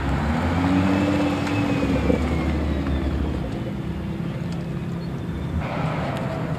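Car engines at a supercar meet: one car's engine note rises and then falls over the first few seconds as it drives past, over a steady low rumble of other engines running.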